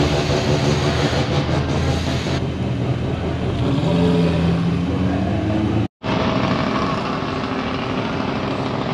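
Ferrari 488 GTB's twin-turbo V8 running at low speed as the car pulls out and rolls away. The sound cuts off abruptly about six seconds in, then a steady engine sound carries on.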